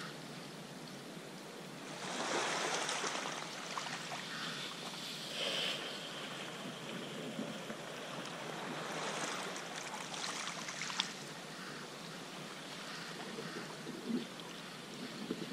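Sea water splashing and washing around a paddled wooden sea kayak, with small waves surging over the rocks at the foot of a cliff. The wash swells about two seconds in and again around nine to eleven seconds.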